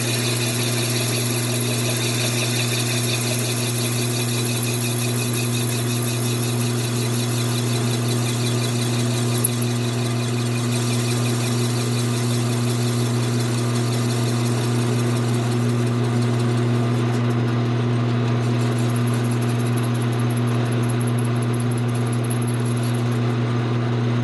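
Small metal lathe running with a steady motor hum while a preset cutting tool faces the end of a thin-wall tube to length. A thin high-pitched tone rides over it and drops away about two-thirds of the way through.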